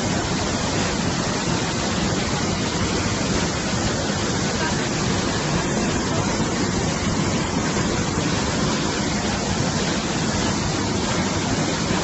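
Swollen river in flood rushing over a small waterfall: a steady, unbroken rush of white water.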